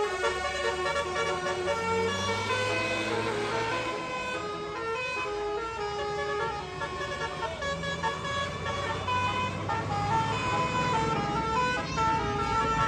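Bus's Basuri telolet horn, a multi-tone horn, playing a tune of held notes that step up and down, with the bus engine running low underneath.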